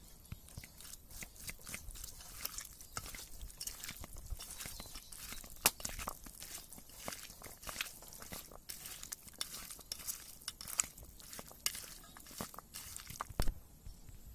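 Bare hand squeezing and mixing raw chicken with sliced onion, garlic-ginger paste and jungle potato pieces in a steel bowl: irregular wet squelches and crunches, with a few sharper clicks.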